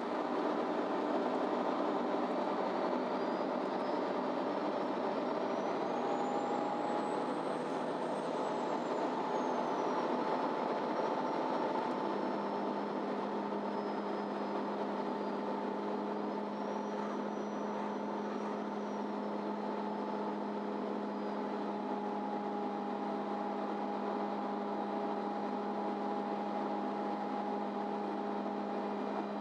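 MAN Lion's City Ü city bus heard from inside while driving: the engine and drivetrain run steadily, with a faint high whine rising and falling twice. About twelve seconds in the engine note changes and settles into a steady low hum.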